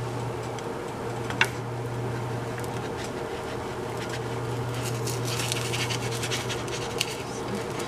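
A pancake sizzling in a frying pan over the steady hum of a kitchen fan. There is a sharp click about a second and a half in, and a stretch of scratchy crackling from about five to seven seconds in.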